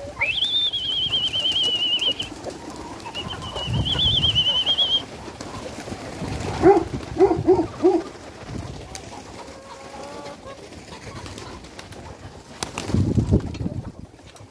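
Domestic pigeons cooing, with a run of four short low coos about seven seconds in. Early on, a high, slightly wavering whistle is held twice for about two seconds each.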